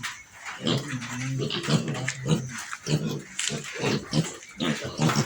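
Pigs grunting repeatedly, with a longer wavering call about a second in.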